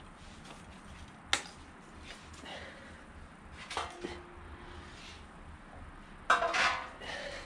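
A few metallic clinks and clatters: a sharp tap about a second in, a clink that rings briefly about four seconds in, and a louder clattering clink near the end.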